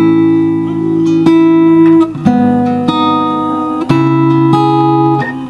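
Acoustic guitar strumming a chord progression, three chords each held about two seconds. It starts on A major 7 and changes to G sharp minor 7 about four seconds in.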